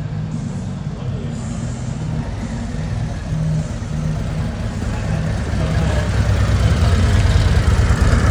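Harley-Davidson V-twin motorcycle engine running at low speed with a steady, pulsing exhaust note, getting louder in the second half as the bike comes close.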